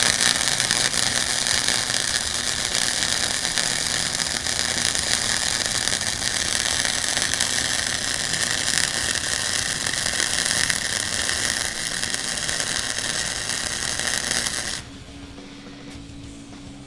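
Flux-core MIG welding arc on a steel exhaust pipe, a steady crackle as a bead is run to fill a small gap in the weld. It cuts off suddenly about fifteen seconds in.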